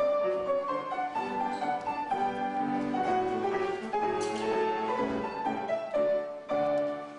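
Classical piano music playing a melody, with the sound dropping away near the end.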